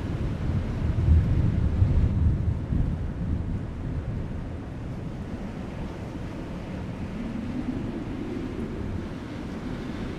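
Soft wind with a low rumble of distant thunder that swells about a second in and fades away by about four seconds.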